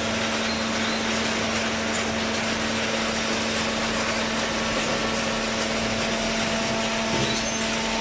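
Hydraulic baler running: steady mechanical noise with a constant low hum.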